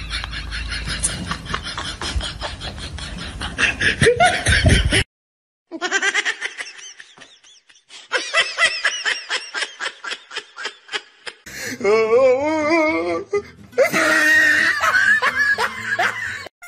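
Laughter in several separate bouts of rapid, rhythmic ha-ha-ha, broken by a brief silence about five seconds in, with a wavering, sing-song laugh near the end.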